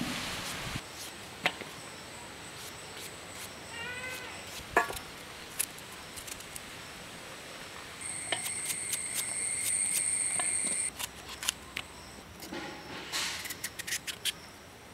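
Knife cutting vegetables by hand over a metal pot: short crisp cuts as the blade draws through each piece. About four seconds in there is a brief animal call, and a steady high-pitched tone runs for about three seconds in the middle.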